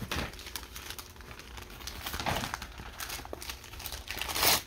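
Wrapping paper crinkling and tearing as a present is unwrapped, in a string of short rustles with a louder burst near the end.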